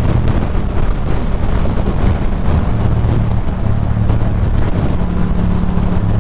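Strong wind buffeting the helmet microphone over a 2006 Ducati Monster 620's air-cooled V-twin engine running steadily at highway speed.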